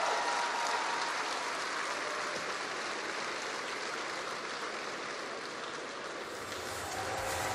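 Large audience applauding steadily, a dense, even clatter of many hands. Music begins to come in near the end.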